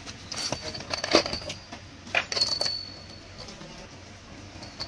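Pointed metal lightning-arrester rods clinking and jangling against one another as they are handled in a tray, with sharp ringing clinks at about one second and again at about two seconds.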